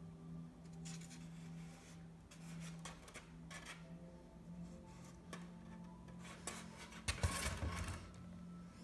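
Irregular rubbing and scraping strokes over a steady low hum, with a louder rustle and a low knock about seven seconds in.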